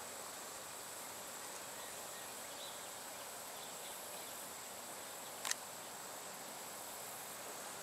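Faint insect chorus in summer grass: a steady high-pitched drone with a few faint chirps over a light outdoor hiss. A single sharp click sounds about five and a half seconds in.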